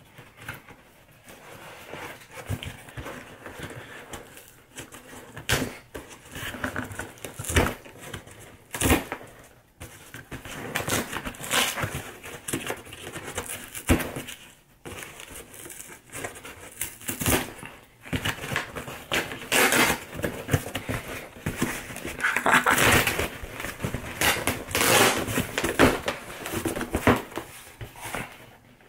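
Cardboard shipping box being torn and pulled open by hand: flaps scraping and crinkling, with irregular sharp cracks and a few louder ripping stretches.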